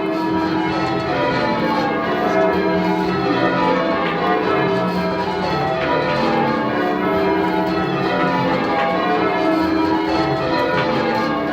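Change ringing on a ring of ten church bells, tenor 18½ cwt in E: the bells strike one after another in a steady, unbroken sequence, each stroke's ring overlapping the next.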